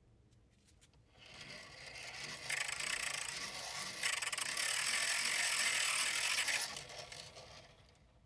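Restored hand-cranked grinder being turned by its crank, its gears whirring. The whirr builds up about a second in, runs loud and steady for a few seconds, then slows and dies away near the end.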